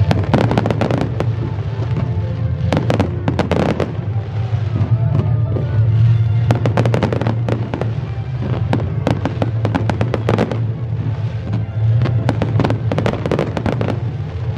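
Fireworks display: waves of sharp bangs and dense crackling from bursting shells. Music plays under it with a steady low bass.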